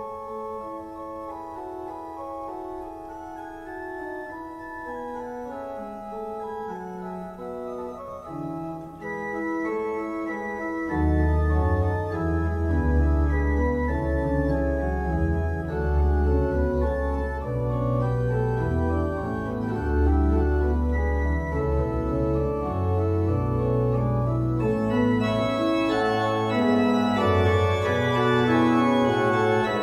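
Church organ playing a soft, sustained passage on the manuals; about eleven seconds in, deep pedal bass notes come in and the music grows louder and fuller, brightening further near the end.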